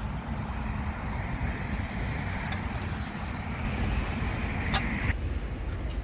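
Steady rumbling noise of riding a bicycle on a paved path: wind on the microphone and tyres on asphalt. A few sharp clicks come through, the loudest just under five seconds in.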